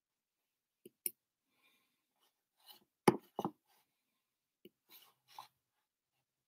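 A handful of light clicks and taps in a small room, spaced irregularly; the loudest is a pair of knocks about three seconds in.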